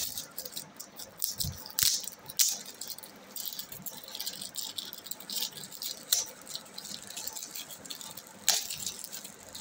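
Glossy gift-wrapping paper crinkling and tearing as hands pick and pull it off a present. It makes irregular crackles, with a few sharper rips about two seconds in and again near the end.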